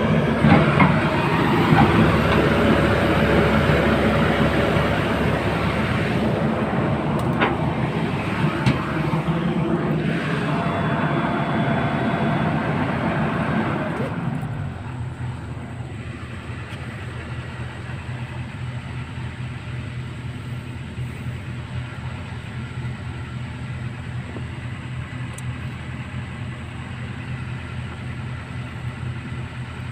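Heavy diesel engine of earthmoving machinery running hard under load. About halfway through it drops back to a steady idle.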